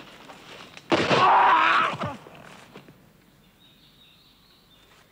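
A flintlock musket shot about a second in, with a man's cry lasting about a second, then quiet woodland background.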